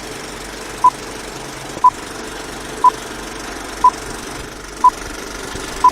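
Intro countdown beeps: a short, identical electronic beep once a second, six times, over a steady mechanical rattling hum.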